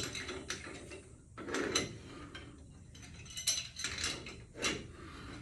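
Irregular metal clicks and clinks as the threaded locking ring of an L00 lathe spindle nose is turned by hand, backing the chuck off its taper mount.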